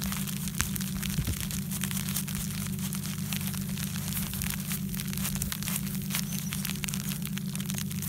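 Fingers scratching and brushing at crusted, icy snow, a dense run of small crunches and crackles, over a steady low hum.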